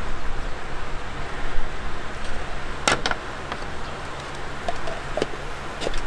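Steady low rumbling outdoor noise with a brief clatter of sharp clicks about three seconds in and a few lighter clicks near the end.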